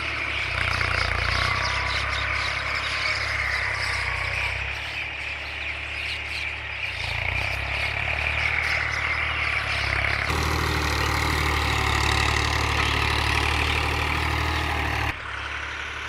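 An engine running steadily with a low hum; its sound shifts about ten seconds in and drops off suddenly near the end.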